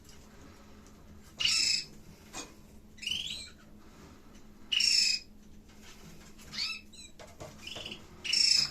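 Canaries giving short, high chirping calls, about six separate calls spaced a second or two apart, some louder than others.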